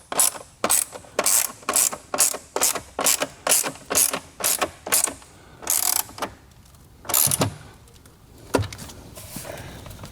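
Hand ratchet wrench clicking as a battery hold-down bracket bolt is tightened, in quick even strokes about two a second that stop about five seconds in, followed by a few slower strokes.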